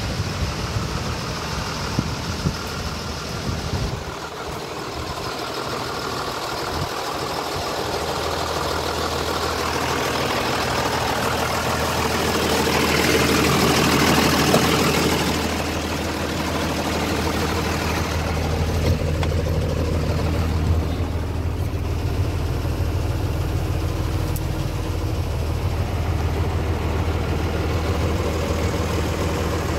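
Renault TRM 150 truck's diesel engine idling steadily, louder around the middle when heard up close beside the chassis.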